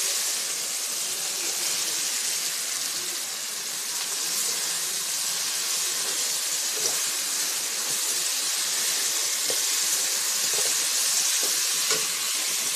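Fried tilapia pieces sizzling steadily in hot oil and spiced onion masala in a karahi as a spatula stirs them in.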